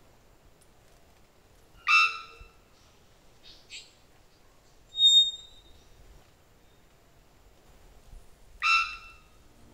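Young three-wattled bellbird calling: a harsh, ringing note about two seconds in, a few faint short notes, a clear high whistle about five seconds in, and another harsh note near the end. These are the false, out-of-tune notes of an immature bird not yet singing like an adult.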